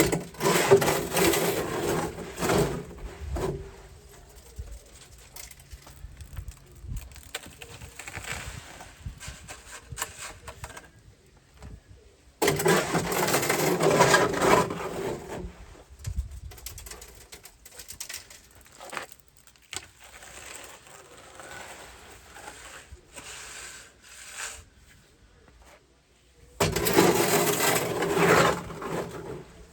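Wet concrete being worked into a footing form with hand tools: three loud bouts of scraping and shovelling, each a few seconds long, with fainter scraping between.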